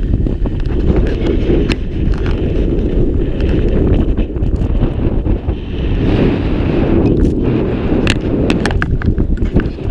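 Wind rushing over an action camera's microphone as a skier descends a groomed slope, with skis scraping over packed snow. Several sharp clicks and knocks, most of them in the second half.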